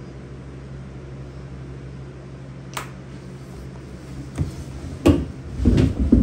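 A steady low hum in a small wooden room, with one sharp click nearly three seconds in. A run of loud, low thumps and knocks follows near the end as people move about the studio.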